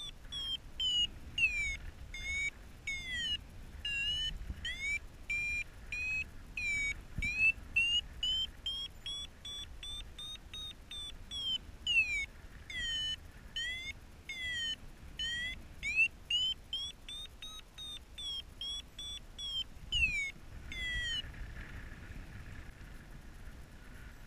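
Paragliding variometer beeping steadily in a climb, short high chirping beeps about two a second whose pitch rises and falls with the lift, stopping a few seconds before the end; the beeping is the sign that the glider is climbing in a thermal. A low rumble of wind runs underneath.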